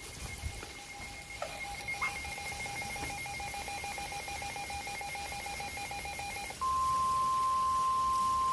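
NOAA weather radio receiver sounding a flash flood warning. First a rapidly pulsing two-pitch alert beep for about six seconds, then a louder, steady single-pitch warning alarm tone for about two seconds, which signals that a warning broadcast follows.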